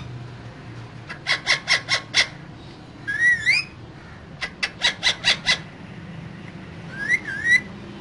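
Caged parakeet calling: two quick runs of about six sharp, evenly spaced calls, each run followed by a loud squawk that glides up and down in pitch.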